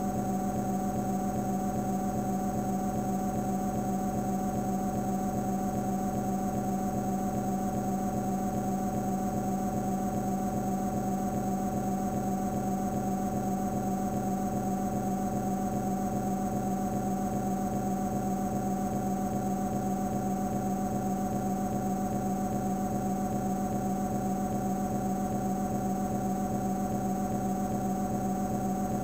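TARDIS console-room hum, played as a looped Amiga sample: a steady low electronic drone with a fast, even pulse.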